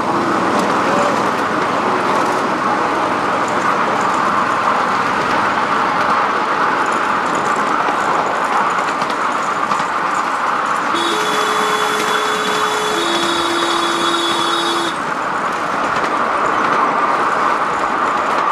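Ride-on miniature railway train running, a steady rattle and rumble of the wheels on the rails heard from aboard the carriages. About eleven seconds in, a two-note horn sounds for about four seconds, the second note lower than the first.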